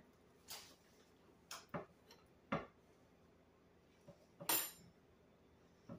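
Scattered light clicks and knocks from handling bread rolls and a knife on a cutting board, with one sharp click and then a louder, brief scraping rustle late on.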